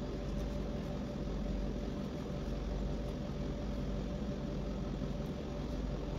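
A steady low background hum with a faint steady tone, unchanging throughout.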